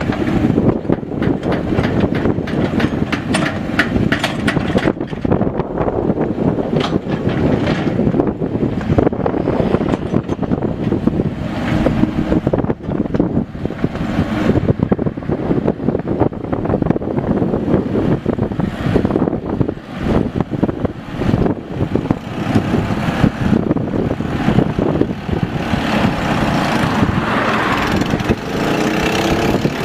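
Mini excavator working: its diesel engine running steadily under load, with frequent clanks and knocks from the machine.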